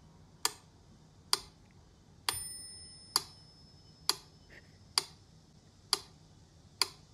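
Steady, even ticking, about one tick a second, like a clock. One tick about two seconds in carries a short bell-like ding that rings out and fades.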